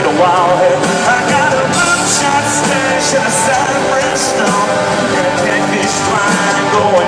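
Live country-rock band playing loudly in concert, with singing over it.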